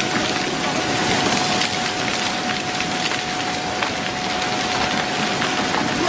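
Floodwater rushing and churning with debris: a steady noisy wash with scattered cracks and knocks, and a thin steady tone held under it that stops near the end.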